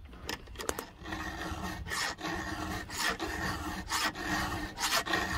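Round chainsaw file rasping across a saw-chain cutter tooth in repeated hand strokes, about one a second, sharpening the tooth.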